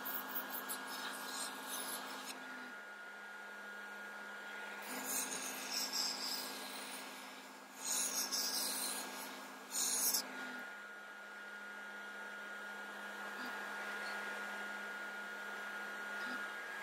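Airbrush spraying paint, a hiss that comes in several bursts over the first ten seconds or so, the loudest near the middle. Under it runs a steady low hum.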